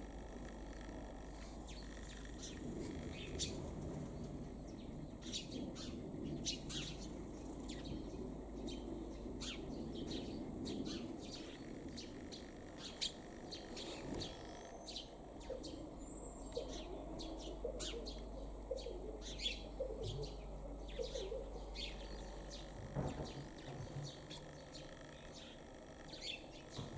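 Small birds chirping: short, high calls repeated many times over a faint, steady low background noise.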